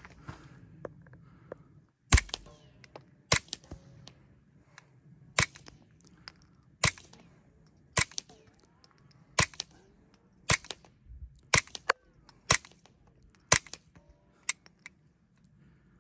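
Suppressed .22 LR pistol fitted with a Nelson Precision Little Spoon silencer, firing CCI Quiet subsonic rounds. About ten sharp, short pops come roughly a second apart, starting about two seconds in, as the magazine is emptied.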